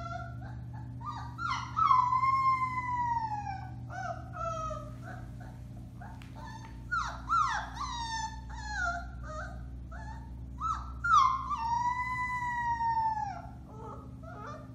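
Four-week-old Alaskan Malamute puppy howling: two long howls that slide down in pitch, about two seconds in and again near eleven seconds, with shorter yips and wavering calls between them.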